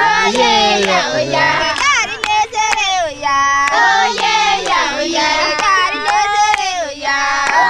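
A group of Samburu women singing a goodbye song together, with sharp hand claps among the voices.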